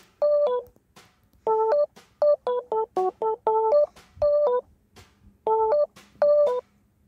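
Background music: a keyboard melody played in short staccato phrases of a few notes each, with brief silent pauses between the phrases.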